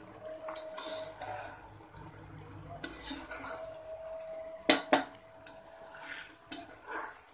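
Slotted spatula stirring soaked rice through mutton broth in a large nonstick pot, scraping and clinking against the pot. There are two sharp clacks close together about two-thirds of the way through, the loudest sounds, and another clack near the end.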